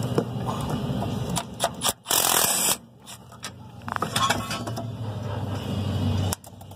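A socket on a long extension working bolts loose on a rooftop furnace's burner assembly, giving scattered metallic clicks and clinks and a short, loud burst of noise about two seconds in. A steady low hum runs underneath.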